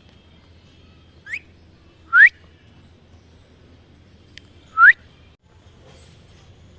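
Pet parrot giving three short, sharply rising whistles: a softer one just over a second in, then two loud ones about three seconds apart.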